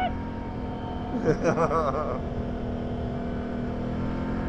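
Quad bike (ATV) engine running at steady, even revs, with a low rumble beneath it. A short spoken word or two comes in over it about a second in.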